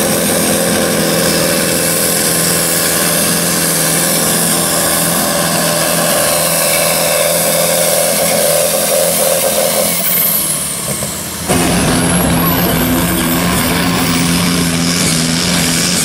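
Pulling tractors' diesel engines running hard under full load. One tractor's steady engine note fades about ten seconds in. After a sudden change, a second tractor's engine runs loud with a high whine rising steadily.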